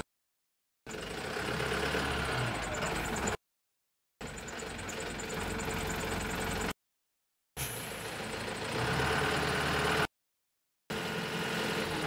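Engine of a self-loading concrete mixer truck running while its hydraulic loading bucket is lifted, a steady mechanical drone. The sound cuts out to dead silence for under a second about every three seconds.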